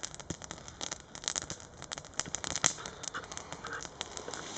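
Small twig fire crackling, with irregular sharp snaps.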